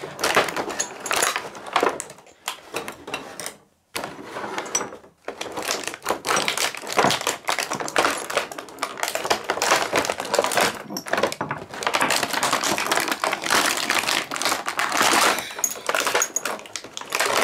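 Clear plastic blister packaging crackling and crinkling in a dense run of clicks as small porcelain tea-set pieces are worked out of it, with a brief pause about four seconds in.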